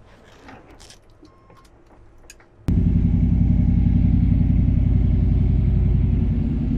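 A few faint clicks, then the 305 small-block V8 fires about two and a half seconds in and runs steadily through turbo-muffler exhaust, settling slightly lower near the end. The throttle-body-injected engine runs a little rich on startup, as the owner says.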